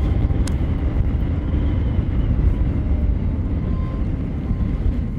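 Strong wind buffeting the microphone: a steady low rumbling roar, with one faint click about half a second in.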